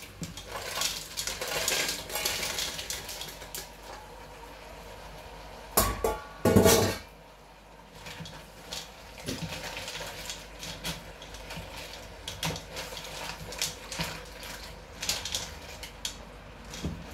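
A utensil stirring green-shell mussels in a metal cooking pot, the shells and utensil clinking and scraping against the pot. A louder clatter of cookware comes about six seconds in.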